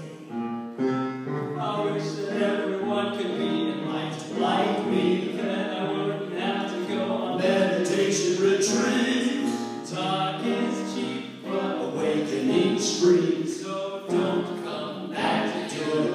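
Several voices singing a song together, with held notes that change every second or so.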